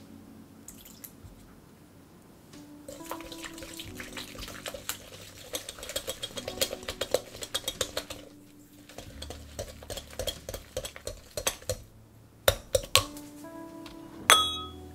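A mixing utensil beating butter and egg in a glass bowl by hand: quick scraping and clicking strokes against the glass, with soft background music. Near the end come a few sharper knocks and one ringing clink of glass.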